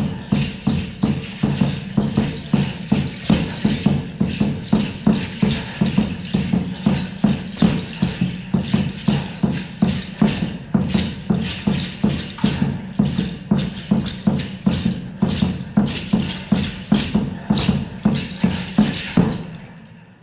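Rhythmic percussion music: a sharp strike about two and a half times a second over a low steady drone, stopping suddenly about a second before the end.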